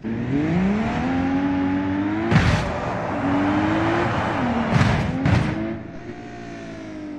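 An engine-like sound revving up several times, with three sharp bangs: one about two seconds in and two close together near five seconds. It quietens near the end.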